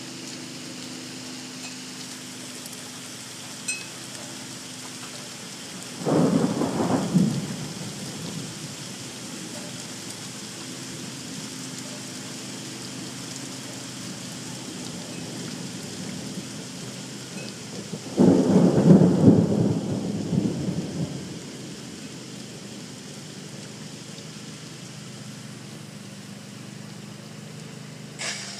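Thunder rolling twice over a steady hiss: a rumble about six seconds in that lasts around two seconds, then a louder, longer roll of some three seconds about eighteen seconds in.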